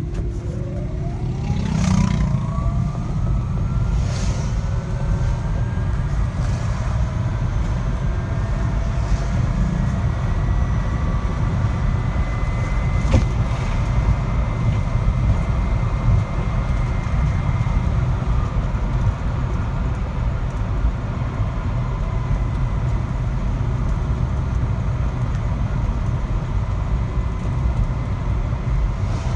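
Motor vehicle running, with a thin whine of several tones over the steady low rumble. The whine climbs quickly in pitch over the first two seconds as the vehicle speeds up, then levels off high and holds. The whine is the abnormal noise being recorded. A few faint clicks fall in between.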